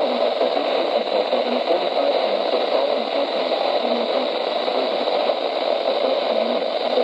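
Steady static hiss from a weather radio receiver, band-limited and unchanging.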